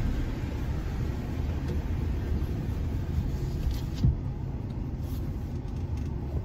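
Pickup truck running, heard from inside the cab as it pulls away: a steady low rumble, with a single sharp knock about four seconds in.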